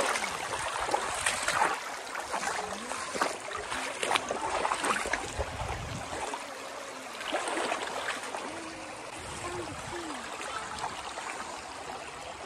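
Shallow river running over stones and gravel: a steady rush and trickle of water, with a few short louder splashy moments in the first half.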